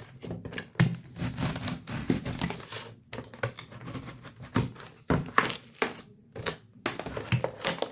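Stiff plastic theft-proof packaging being cut and pried open with a heavy-duty knife: irregular crackling, crinkling and clicking of the hard plastic.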